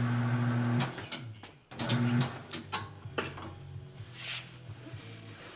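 Tire changing machine's electric motor humming, cutting off under a second in and running again briefly around two seconds in, then a string of sharp metal clicks and clunks from the tire tools and wheel rim as the bead is worked onto a motorcycle rim.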